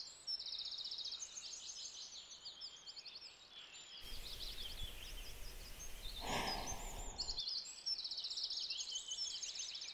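Songbirds chirping and trilling in quick repeated phrases, with a woman's sigh about six seconds in.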